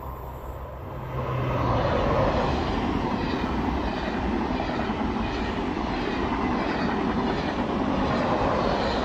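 SNCF TGV Duplex double-deck high-speed trainset passing along the adjacent track. The rumble and wheel noise swell about a second in and hold steady, with an even, rhythmic clatter of wheels over the rails. The sound begins to fall as the rear power car goes by near the end.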